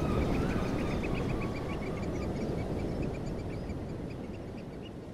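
Many birds calling in short, rapid chirps over a steady low rumble, all slowly fading out.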